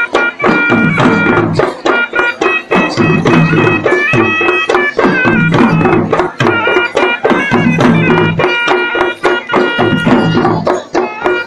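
Sri Lankan traditional dance music: a shrill reed wind instrument playing a wavering melody over fast, dense drumming.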